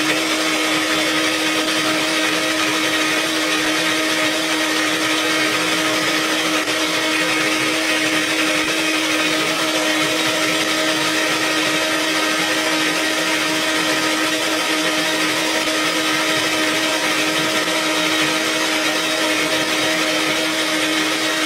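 Vitamix blender running flat out, blending leafy greens and coconut water into juice: a steady motor whine over a rushing noise, holding one pitch throughout. At the very end the motor starts to wind down as it is switched off.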